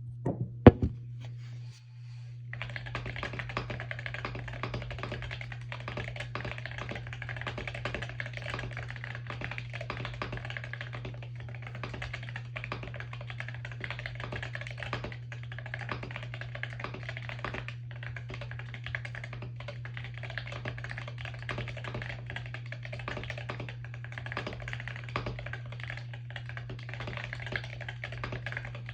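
Continuous fast typing on a keyboard with ceramic keycaps on Lekker V2 magnetic Hall-effect switches: dense, irregular key clacks from about two and a half seconds in, after a few sharp knocks in the first second. A steady low hum runs underneath.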